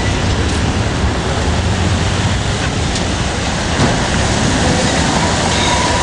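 Steady city street traffic noise: cars and taxis passing, a continuous low rumble with hiss.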